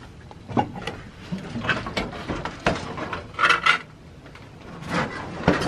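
Irregular knocks, creaks and rubbing of wooden fittings and loose objects being moved about inside a small old caravan, with a louder scrape about three and a half seconds in.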